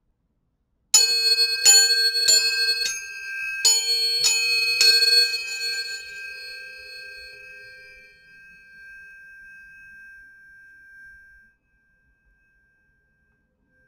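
A set of tuning forks struck one after another, about seven quick metallic strikes in four seconds, leaving several pitches ringing together. The tones fade slowly, one high tone holding for several more seconds before it stops abruptly.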